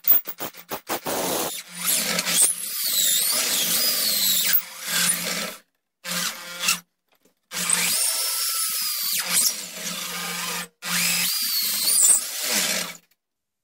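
Electric drill turning a long extension bit that bores the ramrod hole lengthwise into a wooden gunstock, run in several bursts of a few seconds with short pauses between. A few quick stutters at the start, and it stops near the end.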